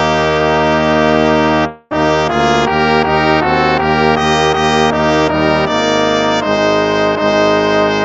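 Instrumental hymn of praise played in brass tones, with held chords. The music breaks off for a moment about two seconds in, then the next phrase begins.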